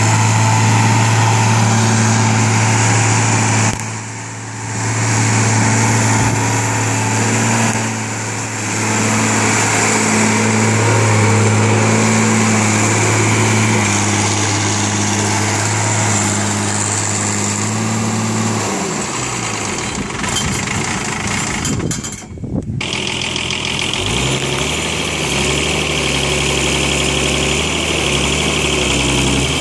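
1978 International 3600A backhoe's engine running steadily with brief dips in level. Partway through, the note fades out, and after a short break it runs again at a higher pitch with a hiss on top.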